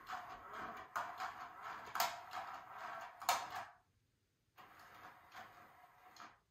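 Battery-powered interactive cat toy running: its small motor and plastic gears whirr and click as the feather pops in and out of the holes, with a few sharper clicks. The motor stops a little under four seconds in and starts again about a second later.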